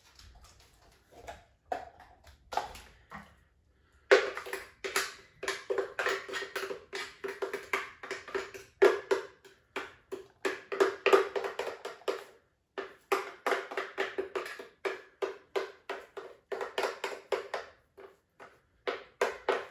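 Plastic blender jar being knocked and tapped over and over, several hollow knocks a second, to shake thick frozen piña colada out into cups. Lighter scattered clicks come first, and the knocking starts about four seconds in.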